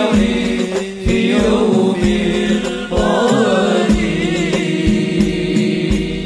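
Sholawat devotional music: a steady drum beat of about two strokes a second under a wavering melody line.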